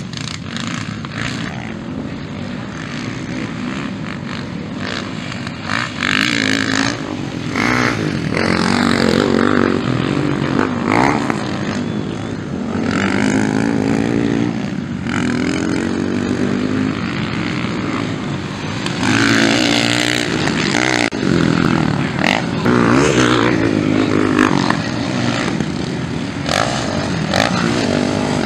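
Motocross bike engines revving hard on a dirt track, pitch repeatedly climbing and dropping as the bikes accelerate, shift and back off through the corners and jumps, with several bikes passing at once.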